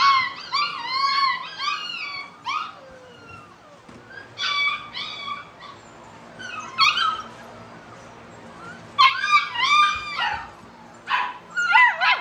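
A litter of American bully puppies whimpering and yipping in clusters of short, high-pitched, arching whines, with quieter pauses between them. Near the end one pup lets out a falling howl.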